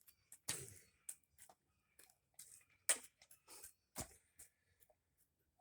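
Soil being worked while a fruit tree is planted: short, irregular scrapes and rustles, the loudest about half a second in and near three seconds in.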